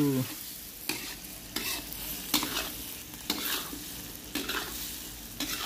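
Metal spatula scraping and tossing goat meat and bell peppers in a steel wok, about one stroke a second, over steady sizzling of the stir-fry.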